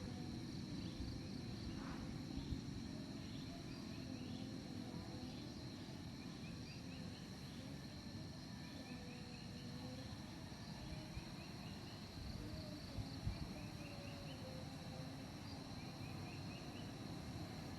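Forest insects: a steady high-pitched buzz throughout, with short chirps repeated in quick rising runs, over a low rumbling background. A couple of faint knocks come through.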